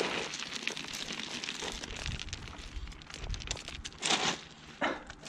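Crunching and scraping of footsteps on loose shore gravel and rocks, with two louder crunches near the end.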